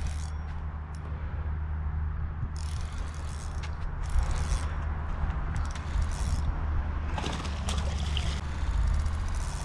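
A spinning reel works in several short spells while a hooked bass is fought, over a steady low rumble. Water splashes near the end as the fish thrashes at the surface.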